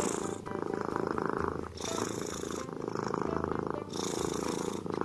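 Kitten purring steadily in waves of about two seconds, dipping briefly between breaths.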